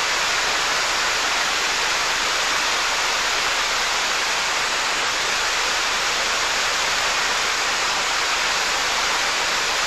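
Water pouring over a weir, a steady rush with no letup.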